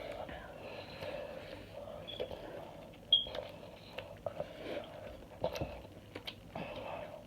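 Quiet eating sounds: chewing with small clicks and sniffs, close to the microphone.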